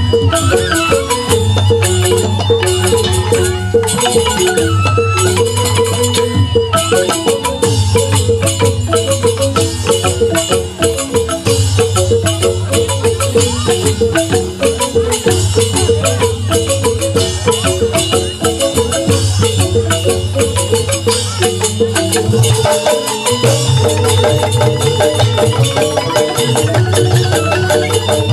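Balinese bamboo gamelan playing a tabuh petegak, an instrumental piece: bamboo-keyed xylophones struck with mallets in fast, dense runs, with kendang drums and low notes pulsing in every few seconds.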